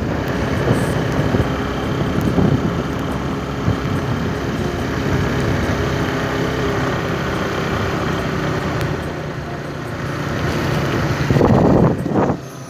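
A vehicle's engine running steadily under road and wind noise while driving, with a louder rush of noise near the end.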